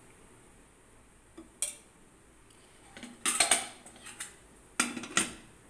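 A metal utensil clinking and knocking against a frying pan: two short clicks about a second and a half in, a cluster of knocks around three seconds, and two more sharp clicks near the end.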